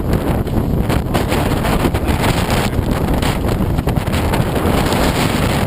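Hurricane-force wind gusting hard, buffeting the microphone with a loud, constant low rumble.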